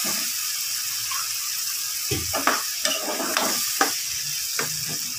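A spatula stirs potato curry in a nonstick pan, scraping and knocking against the pan several times from about two seconds in, over a steady hiss of the curry cooking.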